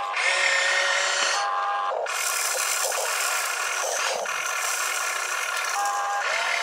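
Electric gear motors of an RC excavator whining as the boom lifts a bucket of dirt and the upper body slews round, the whine stopping and restarting with each control movement.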